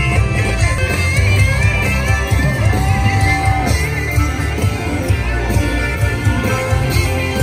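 Live amplified sertanejo music: a band with a lead singer and guitar over a heavy bass.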